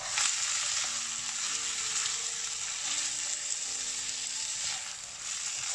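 Chicken livers sizzling in hot oil with ginger-garlic paste in a nonstick frying pan, a steady hiss, as the livers are lightly fried until their colour changes. A spatula stirs through them at the start.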